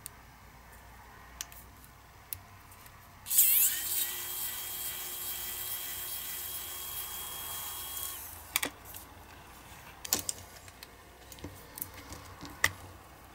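Small pen-sized electric drill working against the base of a diecast toy car: it starts suddenly about three seconds in, runs with a steady high whine for about five seconds, then stops. Sharp light clicks of handling come before and after.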